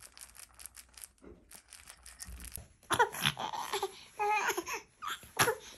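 Faint clicking and rattling of the plastic rings on a hanging baby toy, then about three seconds in a four-month-old infant bursts into loud crying in short, broken wails.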